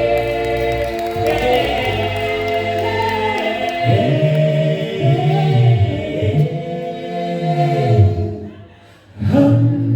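Church choir singing a cappella, holding long closing chords of a hymn while a low bass line moves under them. The singing dies away about eight and a half seconds in, and sound comes back in just before the end.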